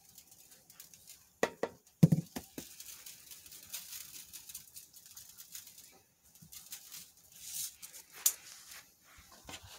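Garlic salt shaken from a plastic shaker over buttered bun halves: a fine, irregular patter and rattle of granules, with two knocks about one and a half and two seconds in.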